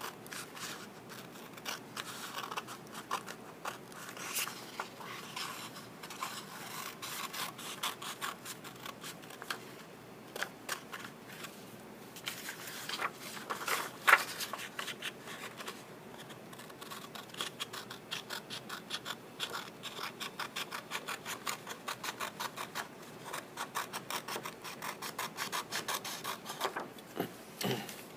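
Scissors snipping through paper along a template's outline, with the sheet rustling and rubbing as it is turned between cuts. There is a sharper click about halfway through, and then a quick, even run of snips.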